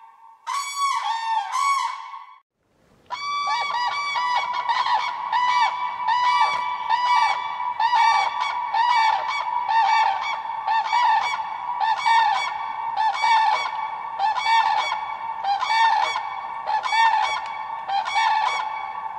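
Common cranes (Grus grus) calling: a short burst of loud calls, a pause of about a second, then a long run of calls repeated about once a second, several birds calling over one another.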